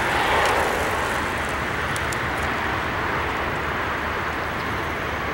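Twin-engine regional jet, taken for an Embraer 170, climbing out after takeoff: a steady rush of jet engine noise that slowly fades as it departs.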